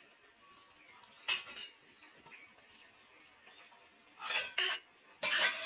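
Metal kitchenware clinking and scraping against a cooking pot: a short clatter about a second in, then two more bursts near the end.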